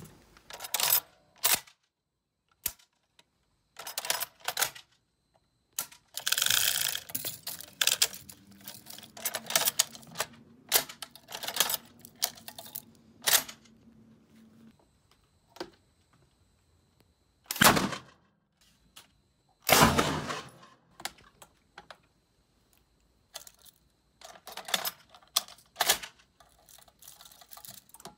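Metal clicks, clacks and rattles of a Maxim 1910 machine gun being loaded: the cartridge belt drawn through the feed block and the action worked by hand, in irregular bursts with pauses, and two louder metal knocks past the middle.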